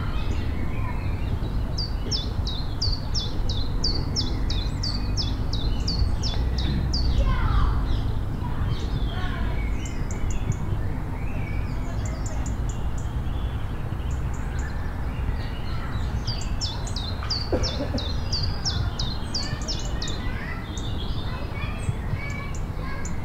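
A songbird singing two fast runs of high, downward-sweeping notes, with other scattered bird calls in between, over a steady low rumble.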